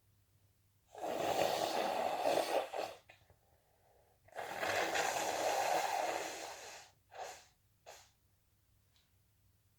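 A person blowing their nose hard into a handkerchief twice, each blow about two seconds long, then two short breaths through the nose.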